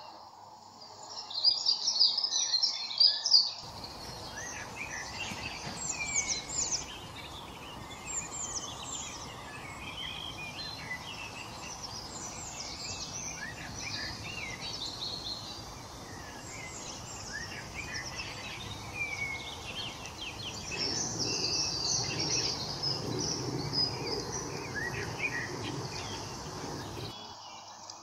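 Small songbirds chirping and twittering, many short high calls overlapping, over steady outdoor background noise. The calls are loudest just after the start and again in a run near the end.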